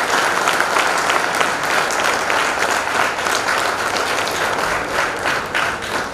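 Audience applauding, many hands clapping together; the applause starts to die away near the end.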